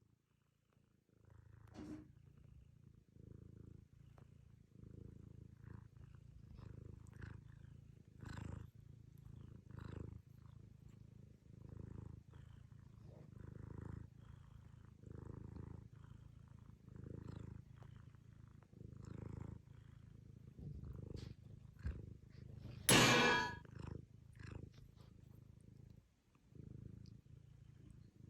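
Domestic brown tabby cat purring in soft, even cycles, one every second or two. About two-thirds of the way through there is one short, much louder sound.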